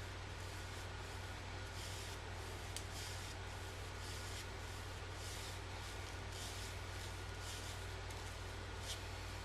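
JA Henckels straight razor scraping through lather and stubble in short strokes, about one a second, on a freshly honed edge. There are two sharp clicks, and a steady low electrical hum runs underneath.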